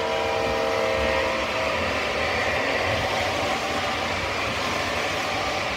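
O scale model trains running, with the steady rolling noise of cars passing close by on the track. A held horn chord of several tones ends about a second and a half in.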